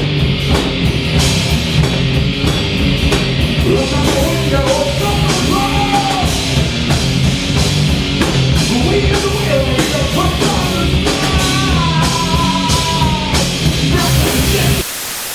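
Live rock band playing loud, with electric guitar, bass and drum kit. Near the end the music cuts off abruptly and leaves a steady hiss.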